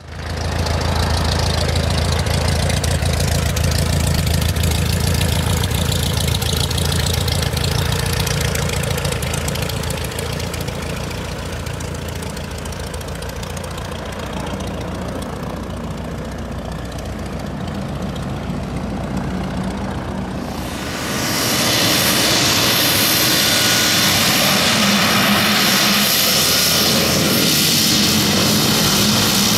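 Cessna 208B Grand Caravan's Pratt & Whitney PT6A turboprop engine and propeller running as the aircraft lands and taxis. At first it is a low, steady propeller drone. About two-thirds of the way through it turns louder and brighter, with a steady high turbine whine, as the aircraft taxis close by.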